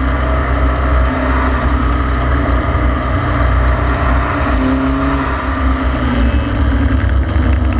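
KTM X-Bow's turbocharged Audi four-cylinder engine running hard on track, its note shifting a few times as the driver works the throttle and gears. It is heard from the open cockpit, with a steady rush of wind and tyre noise under it.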